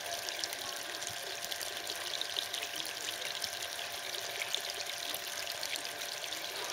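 Water pouring and splashing steadily in a small running flow, an even, crackly trickle.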